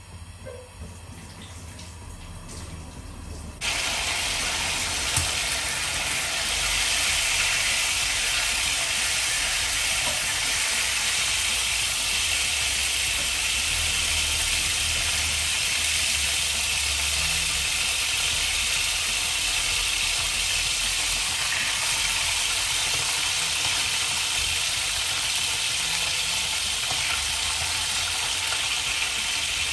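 Thin slices of meat sizzling in hot oil in a frying pan, a steady hiss. It starts suddenly about four seconds in, after a quieter stretch.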